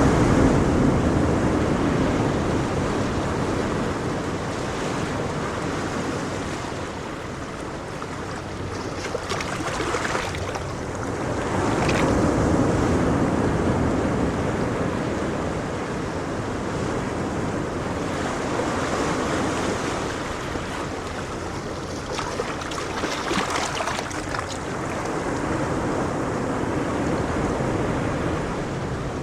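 Ocean waves breaking and washing onto a shore in slow surges that swell and recede every several seconds, with some wind buffeting the microphone.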